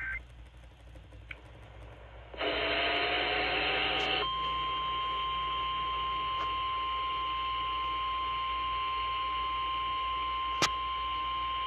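Radio emergency alert: a brief burst of harsh, static-like noise, then a single steady high-pitched alert tone, the warning-alarm tone that announces a tornado warning. A sharp click sounds near the end.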